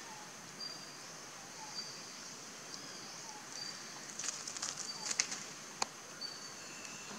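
Outdoor ambience: a steady high insect drone with short bird chirps about once a second. From about four to five and a half seconds in, a spell of crackling from dry leaves as the monkeys shift about on them, then one sharp click.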